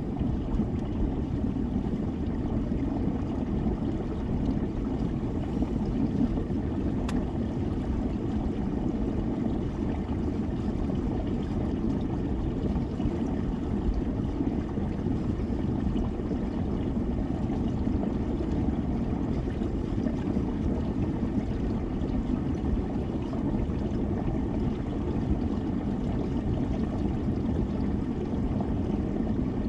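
Steady rushing of water running at a small waterfall.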